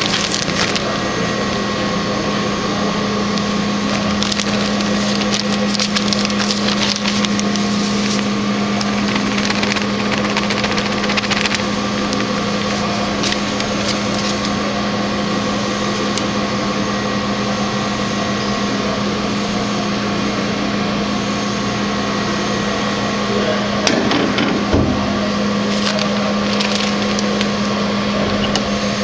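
IKA MF 10 micro fine grinder running steadily with a constant hum while it mills a sample, with scattered ticks and crackles from the material being ground. A short louder burst of crackling comes near the end.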